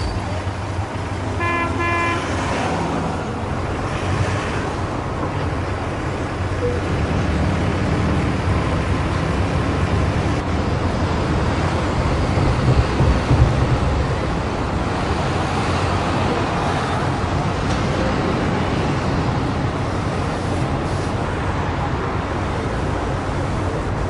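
City street traffic: a steady rumble of passing vehicles, with a car horn giving two short toots about a second and a half in.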